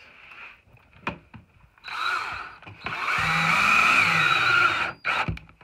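DeWalt cordless drill driving a screw into wood: a short spin about two seconds in, then a longer run of about two seconds as the screw goes in. A few sharp knocks of handling come before and after.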